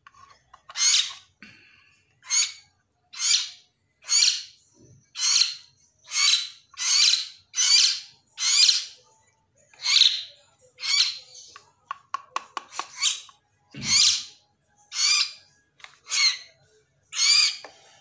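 Three-week-old hill myna chick giving harsh begging calls, about one a second, as it is hand-fed. About twelve seconds in, a quick run of short clicks sounds between the calls.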